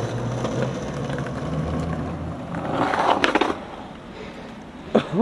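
Skateboard wheels rolling over pavement, then a loud scrape and clatter of the board about three seconds in, then quieter rolling. A sharp knock near the end.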